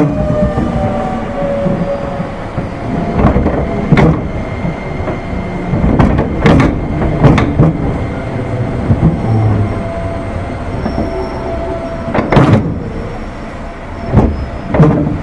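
205 series electric train running on the JR Musashino Line, heard from aboard: steady rumble from the wheels and running gear, with a series of irregular clunks and knocks.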